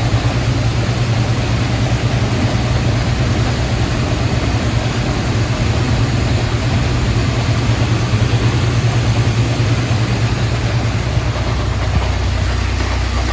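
A heavy farm machine's diesel engine runs steadily with a strong low hum. About twelve seconds in, the hum drops lower as the engine slows toward idle.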